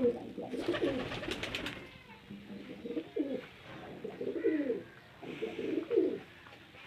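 Pigeons cooing: a series of low, throaty coos, several in a row. About a second in there is a brief rattle of sharp clicks.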